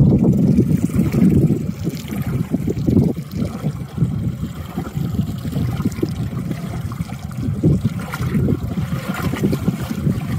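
Wind buffeting the microphone in uneven gusts, over water splashing and lapping against the side of a boat on choppy water.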